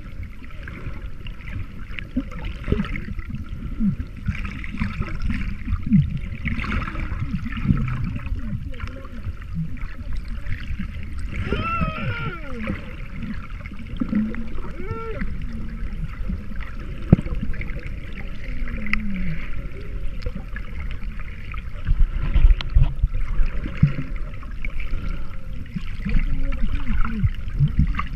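Muffled underwater water noise around a camera held below the surface while snorkeling: a steady low rushing and sloshing of water. A short muffled pitched sound wavers about twelve seconds in and again briefly near fifteen seconds.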